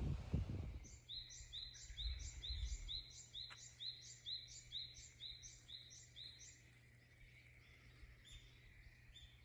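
A bird calling a long run of short, high, repeated notes, about three a second, that stops a little over six seconds in, with a few more scattered notes near the end. A low rumble fades out in the first second.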